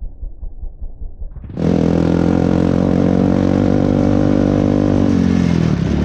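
Muffled low thumping in a steady pulse for about a second and a half, then an ATV engine cuts in clearly, running at steady revs, easing off slightly near the end.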